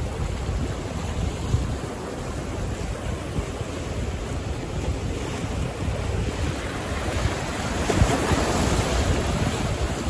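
Sea waves breaking and washing ashore, with wind buffeting the microphone. The surf swells louder about eight seconds in.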